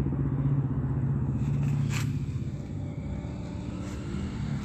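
A motor vehicle's engine running nearby: a steady low hum that fades away after about two seconds, with a single sharp click about two seconds in.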